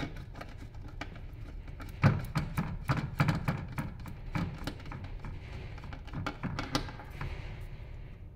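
Irregular small clicks and taps of a screwdriver and fingers against the POS terminal's motherboard, cable connectors and plastic case, with the loudest knock about two seconds in and a dense run of clicks until about seven seconds in.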